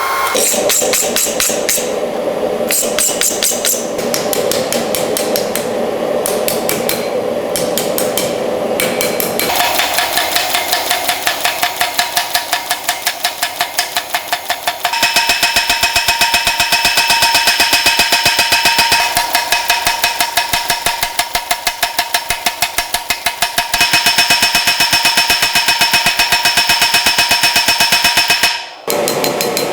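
Rapid, evenly paced hammer blows on steel while forging railroad-rail steel, about five strikes a second, with a bright metallic ring. The ring and rhythm shift a few times, about ten, fifteen and twenty-four seconds in, and the blows break off for a moment near the end.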